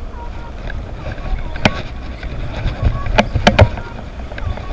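A few sharp clicks and knocks from a spinning reel and rod being handled: one about a second and a half in, then three in quick succession past the middle. They sit over a steady low outdoor rumble.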